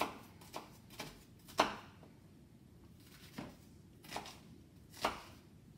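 Kitchen knife chopping onions on a cutting board: about seven separate, irregularly spaced strikes, the loudest about a second and a half in.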